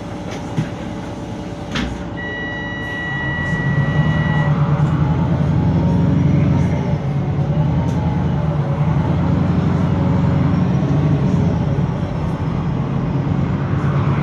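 VDL SB200 / Wright Pulsar 2 single-deck bus heard from inside, its engine pulling away and running under load with a low groaning drone that grows louder about three seconds in. The groaning is the noise this bus is known to make. Early on there are a couple of clicks and a steady electronic beep lasting about two seconds.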